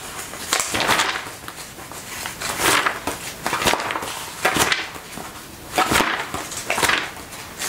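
Pages of a large magazine being flipped one after another, a short papery swish about once a second.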